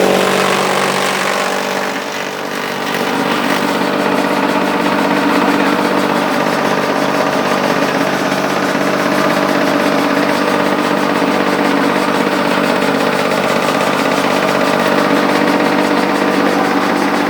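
Chaff cutter (silage chopper) running at speed: a loud, steady mechanical drone with a slight dip in level about two seconds in.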